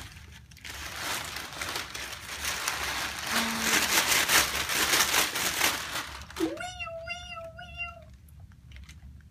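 Crinkly paper table sheet rustling and crumpling as a baby grabs and pulls at it, for several seconds. Then, about six and a half seconds in, the baby gives one high drawn-out squeal that rises and then wavers for under two seconds.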